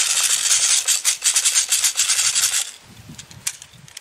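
Loud, fast rattling and rubbing of small hard objects, as if being shaken, close to the microphone; it stops abruptly about two and a half seconds in.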